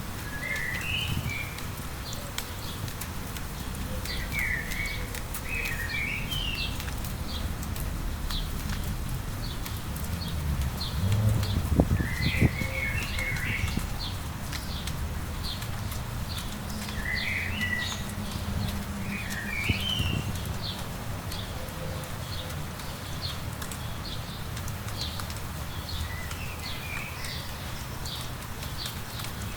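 Songbirds calling: a steady series of short, high chip notes about two a second, with short warbled phrases every few seconds, over a low background rumble.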